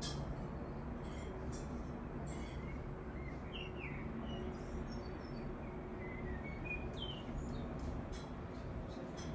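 Birds chirping in short, scattered calls over a steady low outdoor background rumble.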